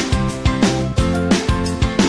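Upbeat background music with plucked guitar and a steady beat, about three strokes a second.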